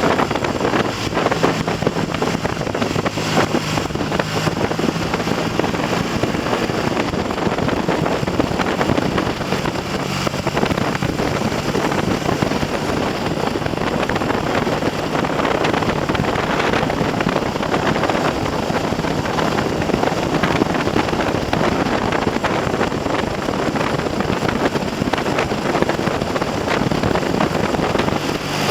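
Heavy wind noise buffeting the microphone while riding a Triumph TR6 parallel-twin motorcycle at speed, with the engine's steady note faint underneath.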